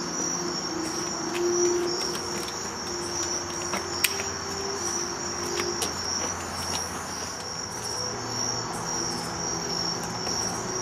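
Crickets chirping steadily in a high, even trill, with a faint low hum underneath and one sharp click about four seconds in.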